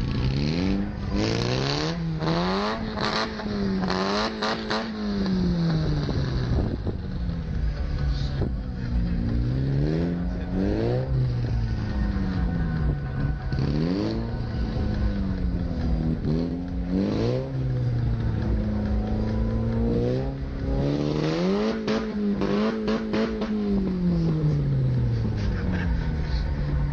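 Car engine revving up and dropping back again and again, its pitch climbing, holding and falling about five times, with a few sudden dips like gear changes.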